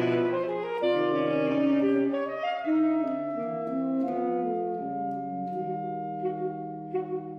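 Saxophone quartet playing held chords of overlapping notes that shift every second or so. The music grows somewhat quieter in the second half, and short repeated notes begin near the end.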